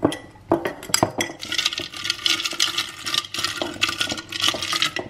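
A glass storage jar's wire-clip lid is opened with a few sharp clicks, then metal coffee capsules rattle and clink against the glass as a hand rummages through them.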